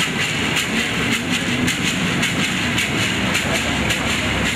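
Gourd rattle (maraca) shaken in a steady rhythm, about two sharp rattling strokes a second, over a steady low hum.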